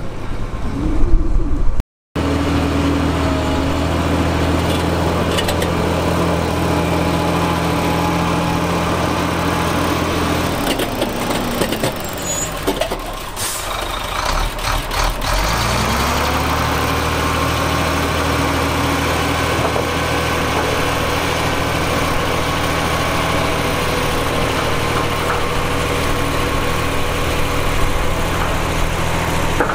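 Heavy diesel engine of a construction machine running steadily under load. About halfway through its pitch sinks for a few seconds and then climbs back to the same steady speed. There is a brief cut-out about two seconds in.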